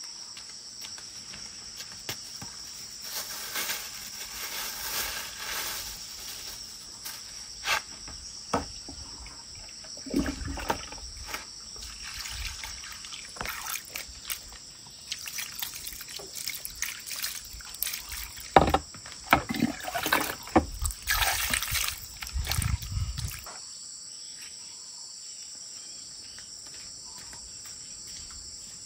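Crickets chirping steadily, with water pouring and trickling and scattered knocks and clicks of things being handled. These stop about two-thirds of the way in, leaving only the crickets.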